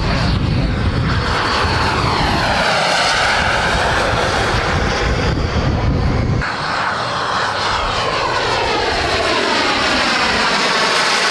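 Turbine-powered RC model jet flying past, its jet whine and whoosh sweeping down and back up in pitch as it passes. About six seconds in the sound changes abruptly and a second pass begins.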